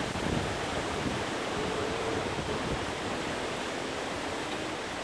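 Wind rushing over a phone microphone outdoors, a steady even hiss, with a faint thin whine about a second and a half in and again near the end.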